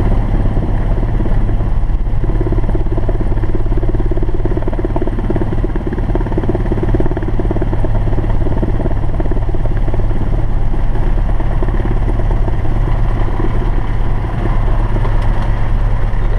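Cessna 172SP's Lycoming four-cylinder engine and propeller running steadily at low taxi power, heard loud inside the cabin as a low, even drone.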